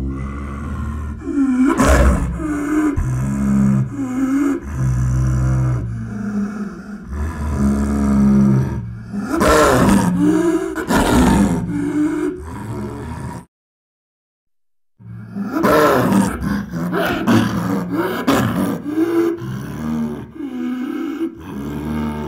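Tiger roaring, a run of long, rasping roars one after another. It stops abruptly a little past the middle for about a second and a half of silence, then starts again.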